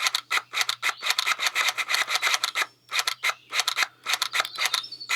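Rapid, irregular rasping clicks, about four or five a second, from an EGR valve actuator being bench-tested with power leads on its terminals. A faint steady low hum sits under them.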